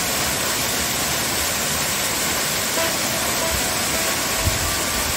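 A waterfall: a steady rush of water falling onto rocks.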